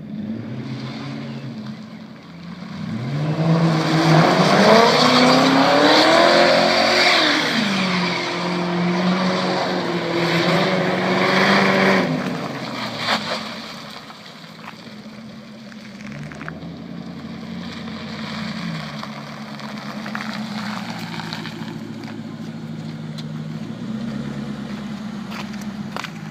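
Lincoln Mark VIII's 4.6-litre DOHC V8 through an open, unmuffled exhaust, idling and then revving up hard. The revs hold high for several seconds and then drop back to a lumpy idle with a few light blips.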